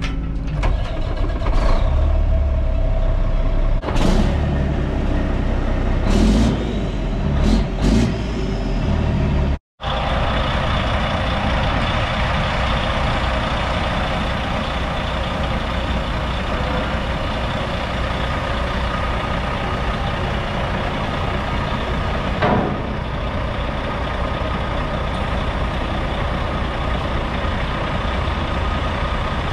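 Caterpillar C13 diesel of a Kenworth T800 dump truck started with the key and running, heard from inside the cab, with several short hisses in the first nine seconds. After a cut just before ten seconds, the truck idles steadily, heard from outside.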